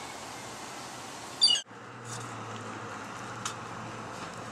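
A bird gives one short, shrill, wavering squawk about a second and a half in. It is followed by a steady low hum with a couple of faint ticks.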